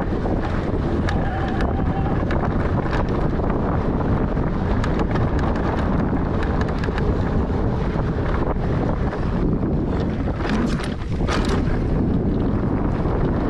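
Wind rushing over the microphone of a camera on a mountain bike being ridden along a dirt trail, with a steady loud noise and frequent short clicks and rattles from the bike over rough ground.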